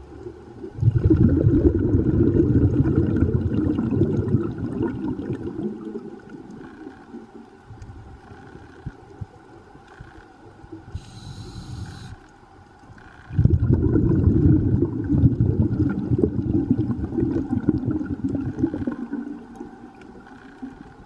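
Scuba diver breathing through a regulator underwater: a long bubbling exhalation starting about a second in, a short hissing inhalation about halfway through, then a second long bubbling exhalation.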